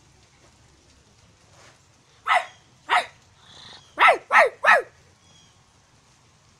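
A young person imitating a dog's bark with his voice: two single barks, then three quick barks in a row, each sliding down in pitch.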